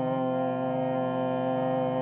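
Kirtan music: a harmonium holding a steady, sustained chord.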